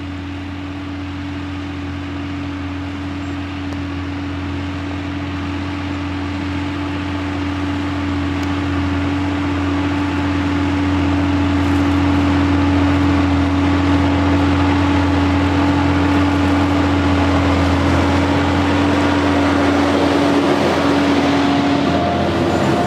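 John Deere 6170R tractor's six-cylinder diesel engine running steadily under load while pulling a five-furrow plough. The drone grows louder over about the first ten seconds, then holds level.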